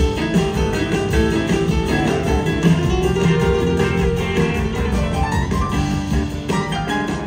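Live rock band playing an instrumental passage, with keyboards and guitar over bass and drums.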